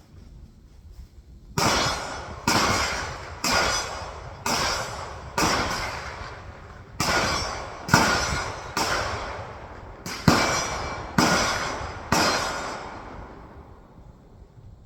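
A string of about a dozen rifle shots at a steady pace of roughly one a second, each a sharp crack with an echoing tail, stopping a couple of seconds before the end.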